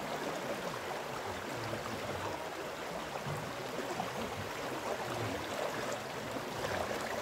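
River water flowing around people standing waist-deep in it: a steady, even rush.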